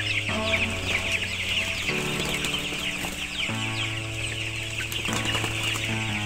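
A large flock of 14-day-old broiler chicks peeping continuously, a dense chorus of many overlapping high chirps.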